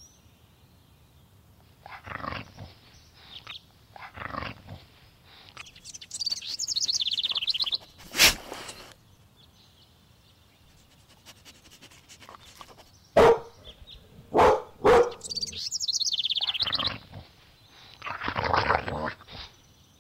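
A dog barking, with single sharp barks about eight seconds in and three more close together around thirteen to fifteen seconds, and longer barking calls near the start and near the end. Twice there is a stretch of high, quickly repeating sound between the barks.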